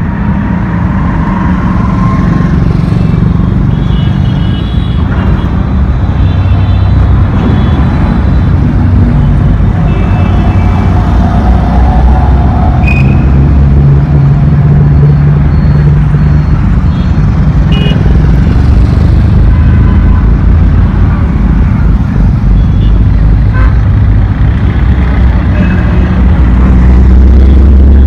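Heavy city road traffic passing close by: motorcycles, auto-rickshaws, cars and vans, a steady, loud mix of engine noise and tyre rumble.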